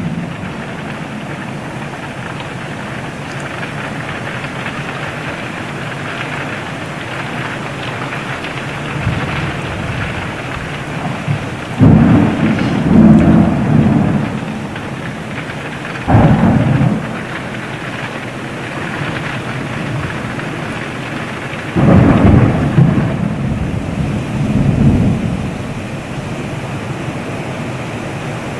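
Mountain thunderstorm: heavy rain falling steadily, broken by loud claps and rumbles of thunder about twelve, sixteen and twenty-two seconds in, the first and last each running on into a second rumble.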